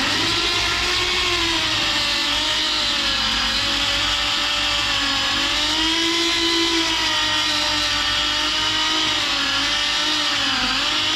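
Electric power tool running a 320-grit sanding paper over a stainless-steel exhaust pipe, a steady motor whine that sags in pitch and recovers several times as the abrasive is pressed on.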